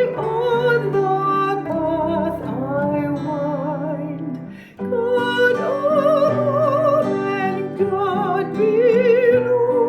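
A solo voice singing held notes with wide vibrato over instrumental accompaniment, breaking off briefly about five seconds in before going on.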